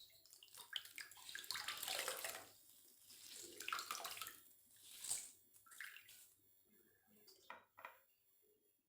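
Water splashing and trickling as bread slices are dipped in water and squeezed out by hand, in several short bouts, with a few light clicks near the end.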